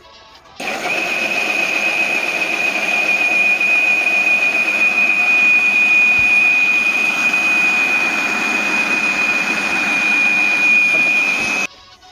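Cello Grind Master 500 W mixer grinder blending a banana shake in its 1-litre wet jar: the motor switches on abruptly with a steady high whine over a loud whirr, runs evenly for about eleven seconds, then cuts off suddenly.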